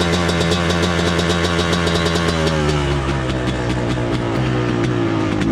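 A 250 cc motocross bike engine idling while still cold, its note wavering and sagging a little about three seconds in. The owner says it is idling a bit funny, which he puts down to the cold engine.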